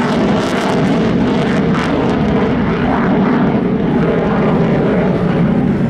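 Mitsubishi F-2 fighter's single F110 turbofan jet engine, heard loud and steady as the jet banks and rolls overhead in a display, with a crackle in the noise during the first couple of seconds.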